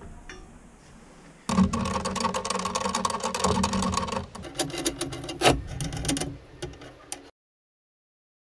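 Rapid metallic clicking and rattling as nuts are run along the steel threaded rod of a home-built scissor lift by hand, loudest and densest for the first few seconds after about a second and a half in, then patchier, and cut off abruptly.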